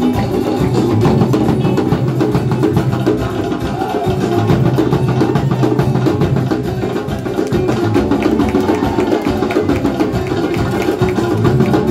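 Lively drum-heavy show music, with fast, dense drum strikes over a steady musical backing.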